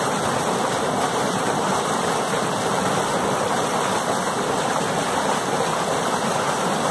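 A fish-stocking truck's discharge tube gushing water and trout into a lake, a steady rushing splash where the stream hits the surface.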